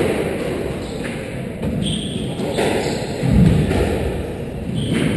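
Squash rally: the rubber ball struck by racquets and smacking off the court walls, a sharp hit about every second, with a heavier low thud about three and a half seconds in.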